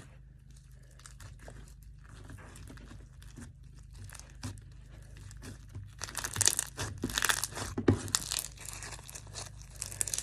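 Slime being squished and stretched by hand, giving a run of small crackling pops and clicks that grows much louder and denser about six seconds in.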